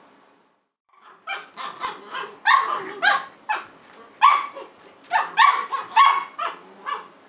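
Puppies play-barking: a rapid string of short, high yaps and barks that starts about a second in, after a moment of silence.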